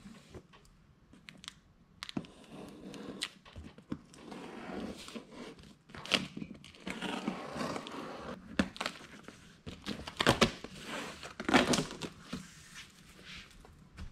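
Packing tape being cut and ripped off a cardboard shipping box, then the cardboard flaps pulled open: irregular scraping, tearing and crinkling, with louder sharp rips and cracks in the second half.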